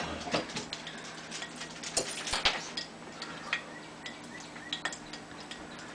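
Light, irregular clicks and taps of a thin wax stylus being dipped into a small metal pot of melted wax and worked over an eggshell, the strongest few about two seconds in, over a faint steady hum.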